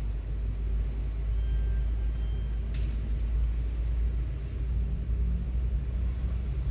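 Car driving in city traffic: a steady low rumble of engine and road noise, with one sharp click about three seconds in.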